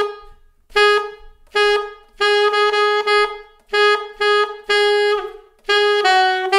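Alto saxophone playing a slow jazz line of short, detached notes at nearly the same pitch. It steps slightly lower near the end into a longer held note. It demonstrates an enclosure that approaches the third of the IV chord.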